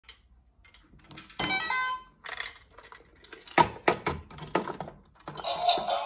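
Hard plastic clunks and knocks as a toy washing machine's door is opened and a smaller plastic toy washing machine is set inside. About a second in comes a short electronic chime, and near the end a toy's electronic tune starts.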